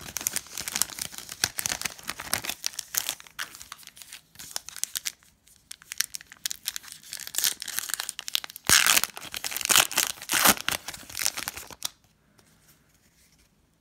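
Shiny foil wrapper of a Donruss basketball card pack crinkling and tearing as it is opened by hand. The crackling comes in spells, loudest about two-thirds of the way through, and dies away about two seconds before the end.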